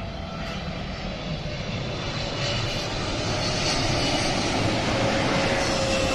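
Boeing 777 twin-engine jet airliner on landing approach, gear down, its engine noise growing steadily louder as it comes nearer, with a faint whine slowly falling in pitch.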